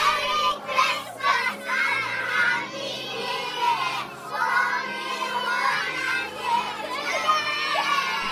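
A group of young schoolchildren singing and shouting together in chorus, breaking into a cheer near the end.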